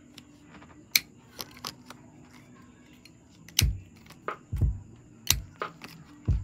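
Sharp clicks and soft knocks from handling packing materials on a desk: a few scattered clicks about a second in, then from about halfway a quicker run of clicks, each with a low thud, about two a second.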